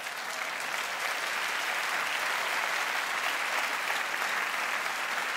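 Live audience applauding a punchline, the clapping building over the first second and then holding steady.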